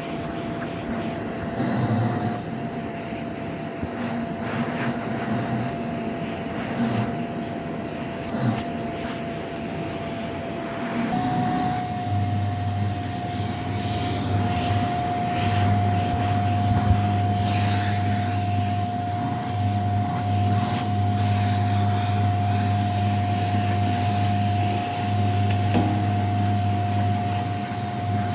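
Vacuum cleaner running over shag carpet: a steady motor whine with a low hum beneath it. About eleven seconds in, the whine steps slightly higher and the hum grows stronger.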